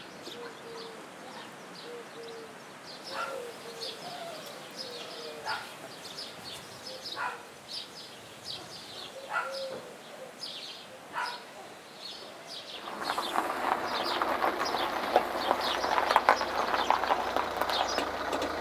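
Birds outdoors: pigeons cooing in low, repeated short notes, with small birds chirping high above them. About 13 seconds in, a louder steady rushing noise takes over.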